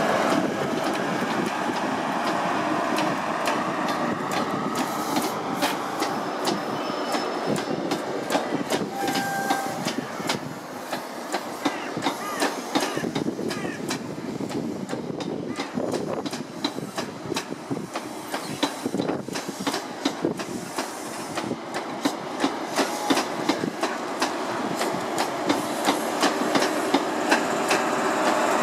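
First Great Western High Speed Train (InterCity 125) running past. Its diesel power car's engine is loud at the start, then the Mark 3 coaches' wheels click over the rail joints, many times and faster in the second half. The noise swells again near the end as the other power car comes by.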